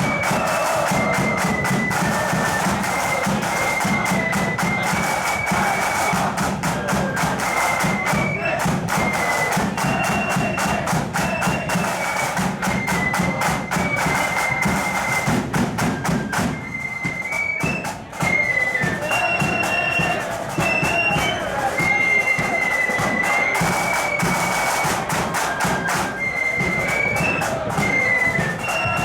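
Marching flute band playing a tune: a high flute melody over rapid side drum beats and a bass drum. The music thins out briefly a little past the middle before the full band comes back in.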